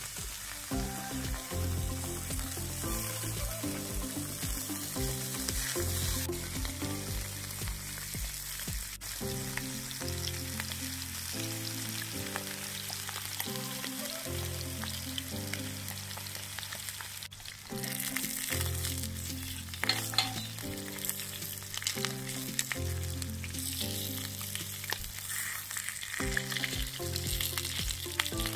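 Slices of lamb kokoreç sizzling steadily on a hot sheet-iron saç griddle as they fry and brown. Background music with a slow stepping melody of low notes plays over it.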